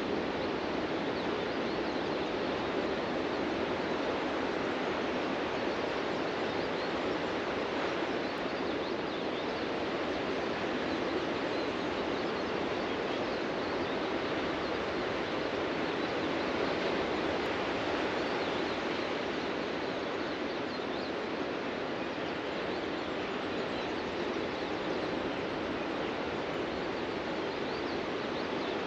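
Ocean surf washing onto a beach: a continuous wash of noise that swells and eases gently, with faint bird chirps above it.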